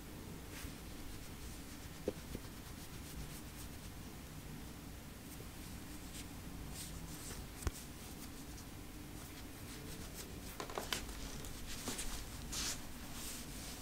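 A hand rubbing and stroking a cat's fur: faint scratchy rustling over a low steady hum, with two soft clicks, and the rubbing louder for a few seconds near the end.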